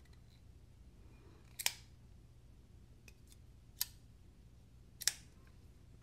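QSP Penguin button-lock folding knife being flicked: three sharp clicks as the blade snaps into place, with a few fainter ticks between, the action of a new knife just breaking in.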